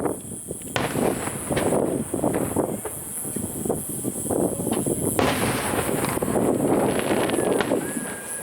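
Aerial fireworks shells bursting in rapid, overlapping succession during a rapid-fire barrage. After a short lull just after the start comes a dense run of bangs, with thick crackling from about halfway through.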